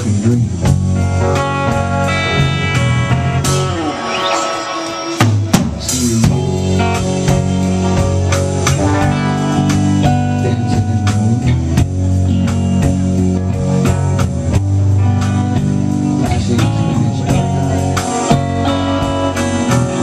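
Live rock band with two electric guitars, electric bass and drum kit playing an instrumental passage to a steady beat, with no singing. About four seconds in the bass drops out for a moment under a guitar line that slides in pitch, and the full band crashes back in about two seconds later.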